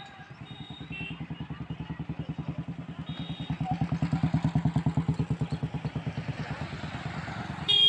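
A motorcycle engine running with a rapid, even low pulse, growing louder to a peak about halfway through and then fading. A short beep comes right at the end.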